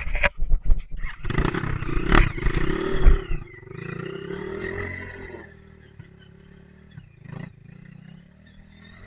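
Dirt bike engine revving hard under load, with loud knocks and clatter over the first three seconds. The revs rise and fall, then drop to a quieter idle a little past halfway.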